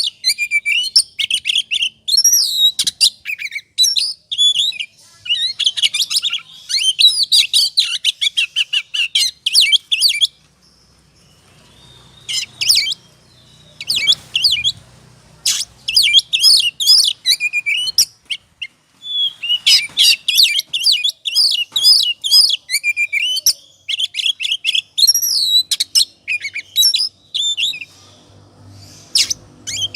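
Oriental magpie-robin (kacer) in full, heated song: fast, varied runs of chirps and whistles, broken by a pause of about two seconds around ten seconds in and a shorter lull a little past halfway.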